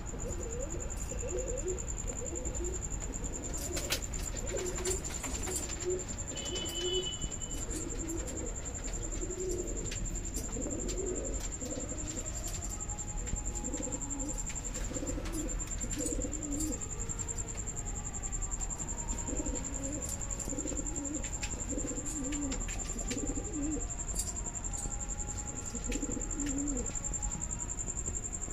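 Male highflyer pigeons cooing, one low rolling coo after another. A steady high-pitched whine sits underneath, with a few short clicks.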